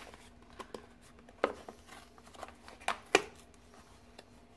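Small paper gift bag being handled and opened: scattered soft rustles and a few sharp paper crackles, the loudest about one and a half and three seconds in.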